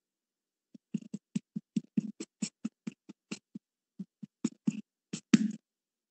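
Sick cat's rapid, labored panting, heard over a video call: short, uneven breath sounds about three to four a second, with silent gaps. The cat is in respiratory distress.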